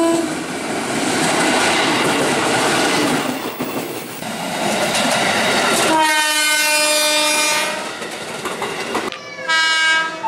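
KRL Commuter Line electric train running past with its wheels clattering on the rails, then a horn blast of nearly two seconds. A second, shorter horn blast comes near the end.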